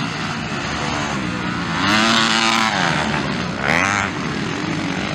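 Motocross bike engines revving hard as the bikes ride past, the pitch climbing and dropping with the throttle and gear changes. The loudest surges come about two seconds in and again just before four seconds.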